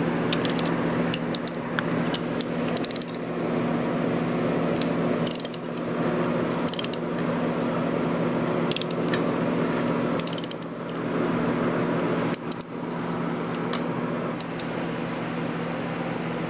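Hand ratchet wrench clicking in short bursts as a bolt is backed out of an engine case with a socket, over a steady low hum.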